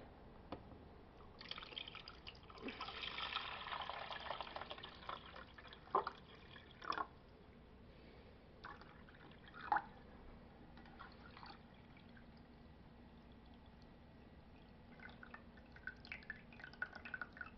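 Bonavita 8-cup drip coffee maker brewing: hot water hissing and trickling through, then dripping, with a few sharp louder clinks and a faint steady hum setting in partway through.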